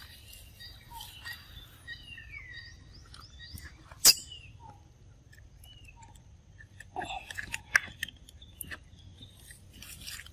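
Small birds chirping in the background, with scattered clicks and rustles; a single sharp click about four seconds in is the loudest sound, and a run of clicks and short sounds follows about seven to nine seconds in.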